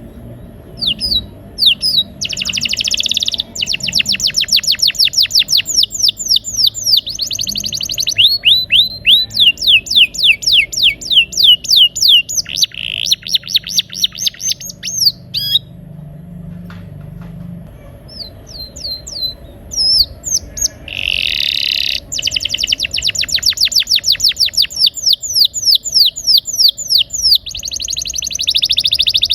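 Male domestic canary singing in long rolling trills of rapid, repeated falling notes, with harsher buzzy passages between them and a pause of a few seconds about halfway through.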